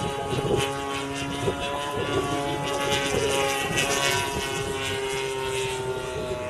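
Gasoline engine of a large radio-controlled model airplane droning steadily overhead, its pitch shifting a little as the plane manoeuvres, with wind rumbling on the microphone.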